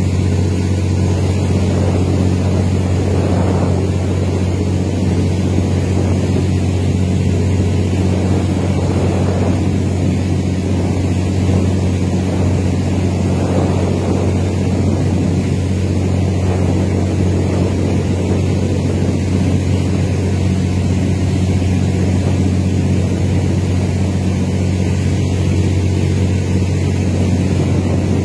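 Boat engine droning steadily at a low pitch under a rushing hiss, heard from on board a riverboat under way.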